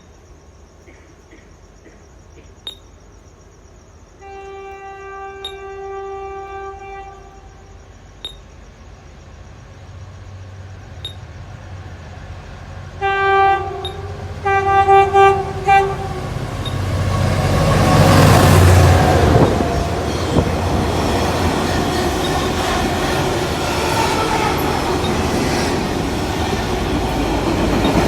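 Train horn sounding one long blast, then several short blasts, as a train approaches. The train then passes close by with a loud, steady rumble of wheels on the rails.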